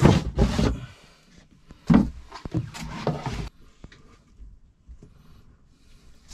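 Handling noise around a wooden cabin panel and the opened compartment: a few knocks and rubbing in the first three and a half seconds, then only faint scattered clicks.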